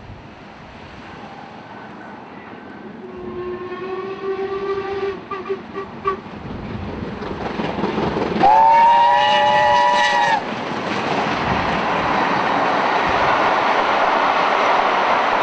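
Steam locomotive whistles on a double-headed steam train. A lower whistle sounds for about three seconds and ends in a few short toots; a few seconds later a louder, higher whistle sounds for about two seconds. After that comes the growing, steady noise of the locomotives' exhaust and the wheels as the train runs past, getting louder toward the end.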